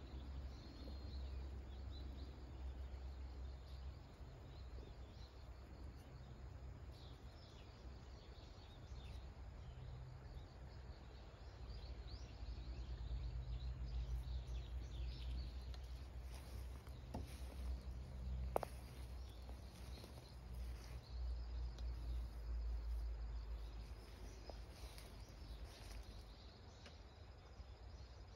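Quiet outdoor ambience: a steady low rumble with faint insects chirping high up, and one sharp click about two-thirds of the way through.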